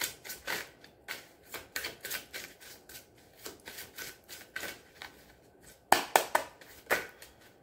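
A deck of large reading cards being shuffled by hand, cards flicking and slapping against each other in a quick, uneven patter, with a few louder snaps near the end.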